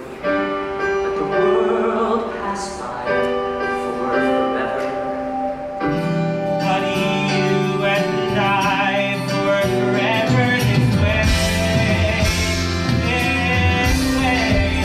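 A male voice sings a musical-theatre ballad over band accompaniment. About six seconds in, the recording cuts to a different performance, and from about ten seconds the accompaniment grows fuller with a strong bass.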